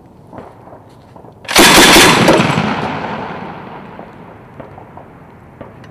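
Mk 19 40 mm automatic grenade launcher firing a three-round burst about one and a half seconds in, the heavy reports rolling away and dying out over about two seconds.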